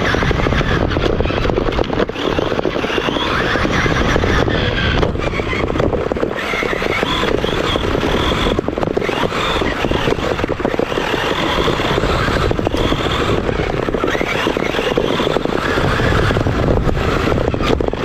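Onboard sound of an XRAY XB8e electric 1/8-scale RC buggy driving hard over dirt: its electric motor and drivetrain whining as the throttle comes and goes, with the chassis and tyres clattering and scraping over the bumpy track.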